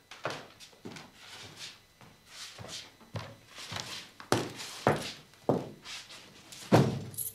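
Footsteps on a hard floor in a reverberant room, a person walking in at an even pace, with a louder thud near the end.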